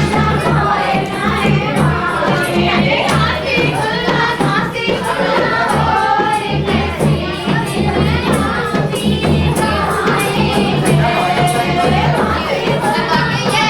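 Hindi folk song: singing over instrumental backing with a steady, repeating low drum beat.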